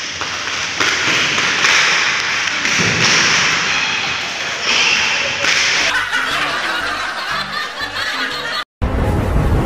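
Twisted sarongs being swung and lashed in a playful sarong fight, over a loud, noisy music track. A low bass line comes in about six seconds in, and the sound cuts out for a moment near the end.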